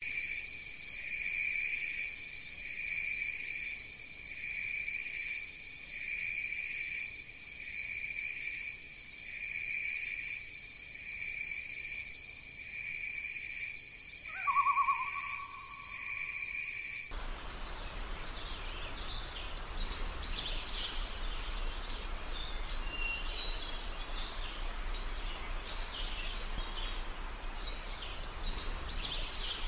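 Night ambience of insects chirping in two steady high pulsing tones, about one pulse a second, with one short lower call about halfway through. It switches suddenly to a daytime woodland ambience of scattered bird chirps over a low rumble.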